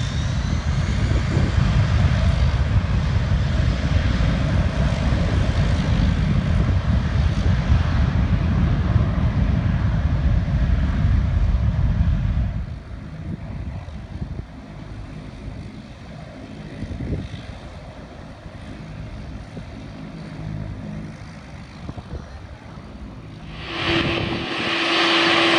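Widebody jet airliner's engines at high power on the runway: a loud, deep rumble that drops off suddenly about halfway through to a quieter, more distant rumble. Near the end a louder hiss with a steady whining tone comes in from a taxiing jet airliner.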